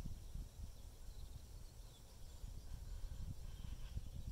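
Wind buffeting the phone's microphone, an uneven low rumble, with a few faint bird chirps.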